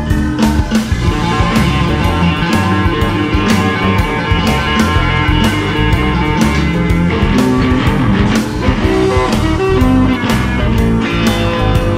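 Electric guitar playing rock and blues lines over a backing of bass and a steady drum beat.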